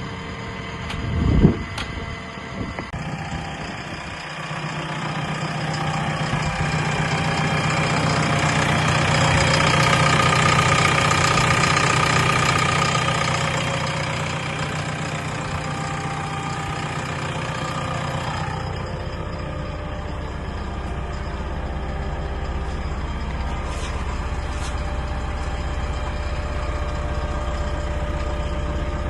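JCB 3DX backhoe loader's diesel engine: a short loud burst about a second in, then the engine running, louder for several seconds in the middle, before settling into a steady low idle.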